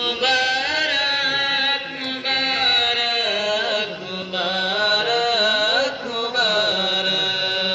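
A single voice chanting a melodic religious recitation in long held phrases that glide up and down, breaking off briefly about two, four and six seconds in.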